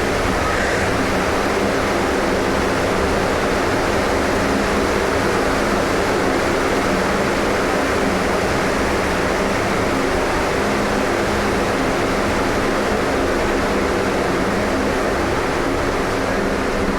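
Bathroom ambience: a steady rushing noise with a faint low hum under it, unchanging throughout.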